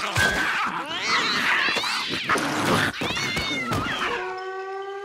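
Cartoon cat yowling and screeching over a noisy scuffle with sharp hits. It stops about four seconds in, and soft tuneful music with held notes takes over.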